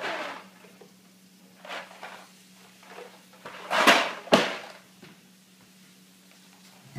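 A toddler rummaging in a kitchen drawer: cardboard boxes knocking and sliding against the drawer and the tile floor, with two sharp knocks close together about four seconds in.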